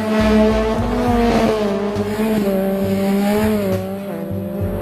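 Motorcycle engine held at high, fairly steady revs, its pitch wavering a little and dipping briefly a few seconds in, with tire noise from the sliding wheel.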